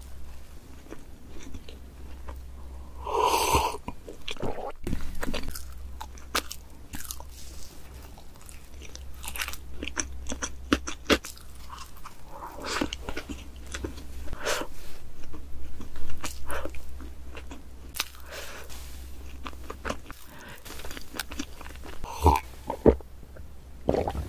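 Close-miked eating of chocolate cake: biting and chewing with sticky, wet mouth clicks and smacks and a little crunch from the cake's crumbly chunks. Near the end there are a couple of swallowing gulps as milk is drunk.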